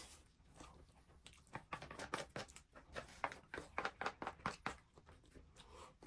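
A person chewing food close to the microphone: a run of quick, irregular wet clicks and smacks, busiest in the middle and fading near the end.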